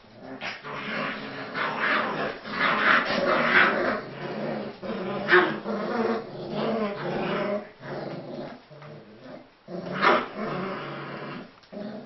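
Four-week-old Central Asian Shepherd Dog puppies growling at each other as they play-fight. The growling is almost continuous, with a few louder peaks, the loudest about five and ten seconds in, and it tails off near the end.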